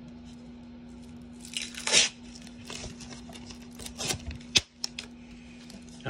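Sticky lint-roller sheet being peeled and torn off: a crackling rip about a second and a half in, loudest near two seconds, then scattered crinkling and sharp clicks.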